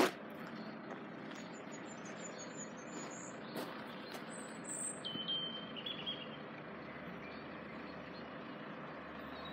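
Quiet outdoor ambience at a railway level crossing: a steady background hiss with a few birds chirping. A faint low hum comes in about two-thirds of the way through, the first sound of the approaching train.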